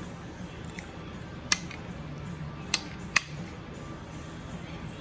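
Three sharp clicks of cutlery against a plate during eating, about a second and a half in, near the three-second mark and just after, over quiet background music.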